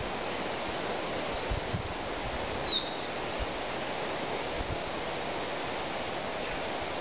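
Steady outdoor background hiss in open bush, with a few faint low bumps and one brief high chirp a little under three seconds in.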